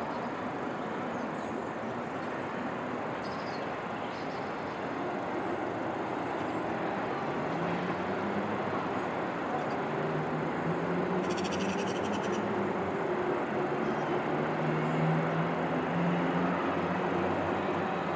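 Steady hum of distant city traffic. A low motor drone that wavers in pitch grows louder from about seven seconds in, and a brief high twittering comes about eleven seconds in.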